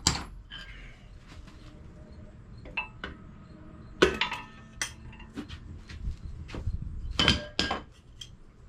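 Metal engine parts, a freshly removed piston and connecting rod among them, clinking and knocking as they are handled and set down, with short metallic ringing. The knocks come irregularly, the loudest about four seconds in.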